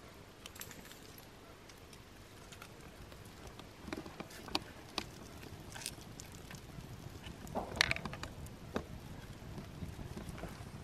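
Small campfire of dry twigs catching and burning, with scattered crackles and snaps that grow busier and louder from about four seconds in as the flames take hold, one louder snap coming about two-thirds of the way through.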